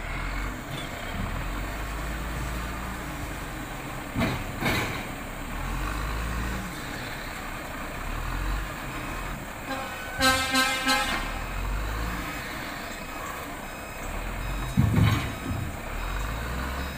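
Diesel engine of a CAT wheel loader with a log grapple running steadily as it unloads logs from a logging truck. There are a few heavy thumps, and about ten seconds in a short run of beeps.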